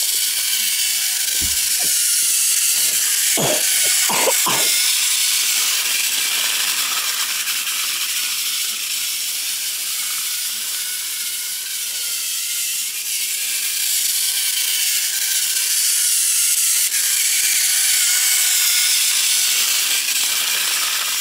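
Motorised toy train engine (Thomas & Friends Hiro) running on plastic track, its small electric motor and gears giving a steady whirring rattle. It grows louder as the train comes round close, most of all in the last several seconds.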